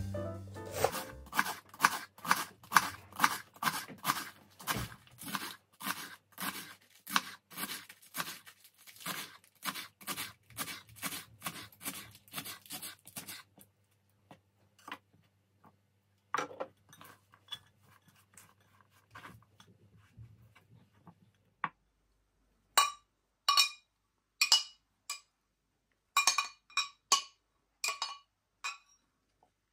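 A knife chopping through crisp lettuce onto a wooden cutting board, at a steady pace of about three cuts a second, stops after about 13 seconds. Quieter rustling follows as the shredded lettuce is moved. From about 22 seconds a metal spoon knocks and clinks against a glass bowl with short ringing tones while shrimp are spooned in.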